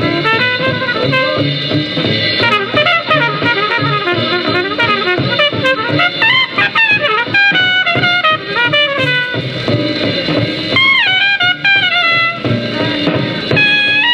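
Old live bebop recording played from a vinyl record: fast, dense trumpet and alto saxophone lines over piano, bass and drums, with a dull, muffled top end and faint surface clicks. A high trumpet note bends sharply down and back up about eleven seconds in.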